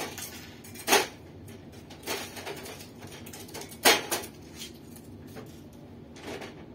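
Parts and packaging being handled by hand: several sharp clatters and knocks, the loudest about a second in and about four seconds in, with softer rustles between.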